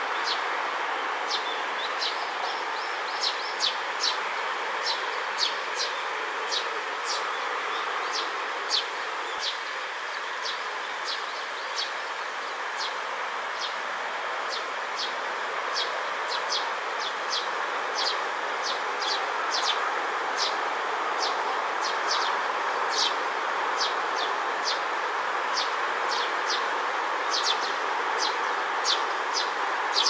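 Juvenile Eurasian tree sparrow chirping: short, high, sharp chirps repeated about one or two a second, over a steady background din.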